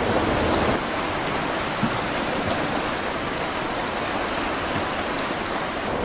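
Steady rush of tsunami floodwater flowing in a broad torrent, an even hiss-like noise with no distinct events.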